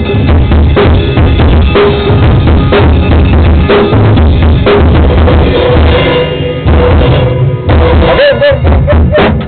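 Drum kit played loud in a band jam, with kick and snare hits in a steady rock beat over other instruments. In the second half a held tone sounds under the drums, and near the end the playing thins out.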